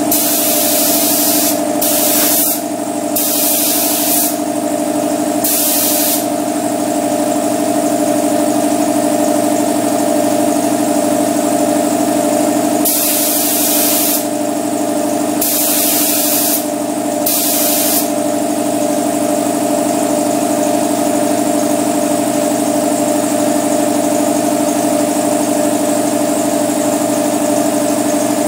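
Spray gun spraying epoxy primer in short trigger pulls: about seven hissing bursts, a cluster in the first six seconds and another about halfway through. Under them runs a steady machine drone.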